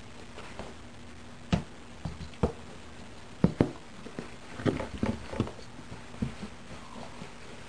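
Irregular knocks, thumps and scuffs as a cat paws at a dangled rope-ball toy from under a cardboard box, its paws and the toy striking the cardboard and rug, busiest in the middle stretch.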